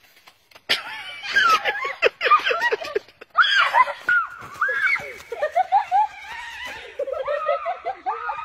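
High-pitched laughter and shrieks that break out suddenly just under a second in and carry on in quick rising-and-falling bursts.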